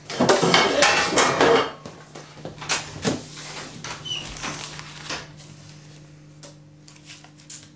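Playing cards thrown down and scattering across a table, a dense clatter of slaps and clicks lasting about a second and a half, followed by scattered softer clicks and rustling as cards and banknotes are gathered up.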